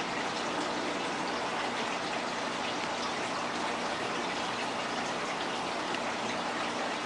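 Aquarium water bubbling and splashing steadily.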